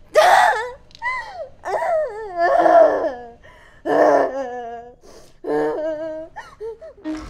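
A young woman crying and wailing loudly, in a run of drawn-out, wavering sobs with short pauses between them.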